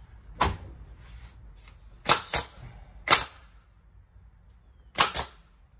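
Nail gun firing six times, some shots in quick pairs, driving light nails into a wooden fascia board.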